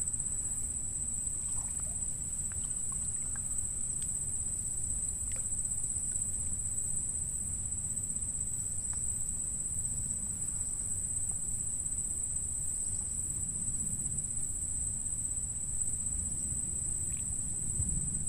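Steady high-pitched drone of insects, unbroken throughout, over a low rumbling noise.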